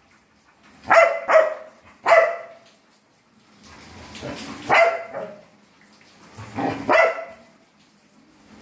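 A pale Labrador-type dog barking about five times, single barks and a quick pair, with pauses of one to two seconds between them. It is pestering to be taken out.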